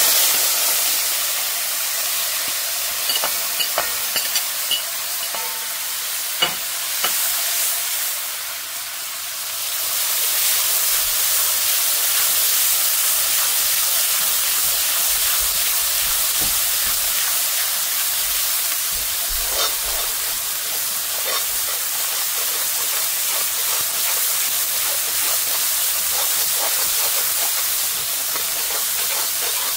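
Curry seasoning frying down (bhunjal) in hot oil in a karahi: a steady loud sizzle, with a few light clicks of the spoon against the pot as it is stirred in the first several seconds and again about two-thirds of the way through.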